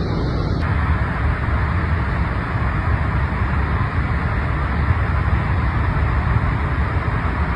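Ciliwung River floodwater rushing over the Katulampa weir: a steady, loud rush of high water after continuous rain.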